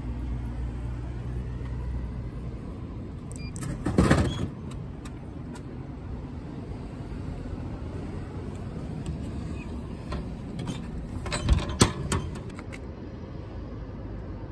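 A can from a Coca-Cola vending machine drops into the dispensing tray with a loud clunk about four seconds in. Near the end comes a quick run of knocks and clicks as the can is pulled out through the tray's flap, all over a steady low rumble.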